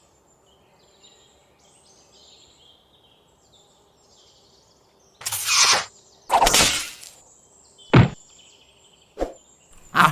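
Faint high chirps, then about halfway two loud rushing whooshes, each over half a second long, followed by a sharp thud, a short click and another burst near the end.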